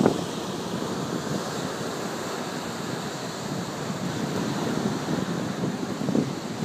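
Ocean surf breaking and washing up a sandy beach in a steady rush, with wind buffeting the microphone, hardest in a brief gust at the very start.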